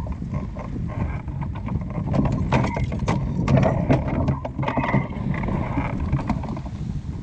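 Wind buffeting the microphone on a small boat at sea, a steady low rumble, with a run of sharp clicks and knocks between about two and five seconds in.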